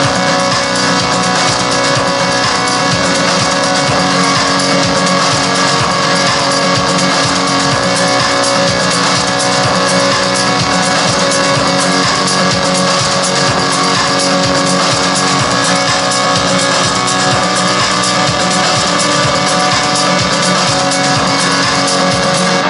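Loud, continuous music with guitar.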